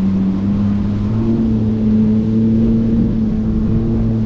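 Small motorboat's engine running steadily at low speed, its pitch stepping up slightly about a second in.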